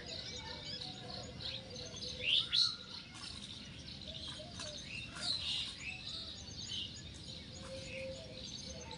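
Several birds chirping and calling in a busy mix of short high notes, loudest a little after two seconds in and again around five seconds in.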